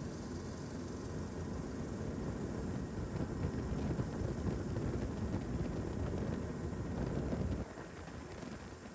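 Low rumble of an aircraft in flight mixed with wind noise, growing louder through the middle and dropping off suddenly near the end.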